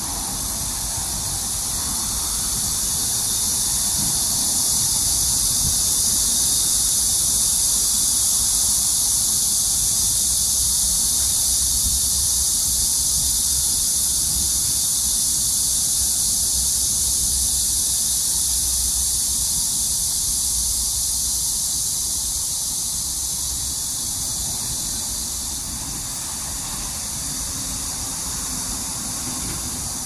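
Chorus of cicadas in the trees: a loud, steady, high-pitched hissing drone that swells a little over the first few seconds and eases off after about twenty seconds.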